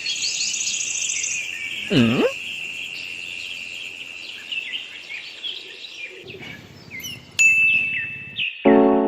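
Birds chirping over a steady high-pitched hum, with a brief sliding tone about two seconds in and a sharp ding near the end. Piano music comes in just before the end.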